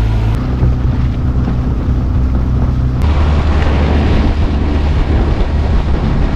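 A motor running steadily, its low hum stepping to a new pitch twice, under heavy wind rush on the microphone.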